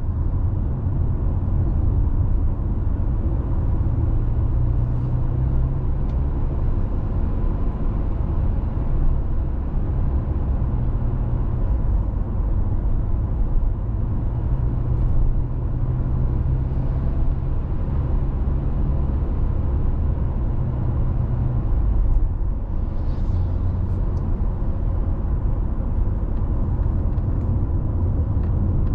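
Steady road noise from a car driving at speed: low tyre and engine rumble heard from inside the cabin, with a faint hum and occasional light ticks.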